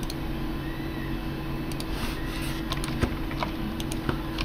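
A few separate clicks from a computer mouse and keyboard over a steady low electrical hum.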